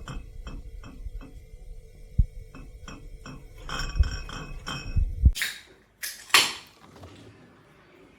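A quick even series of light clicks and clinks, about two a second, with a few heavier knocks, then two short rushing noises before it goes quiet.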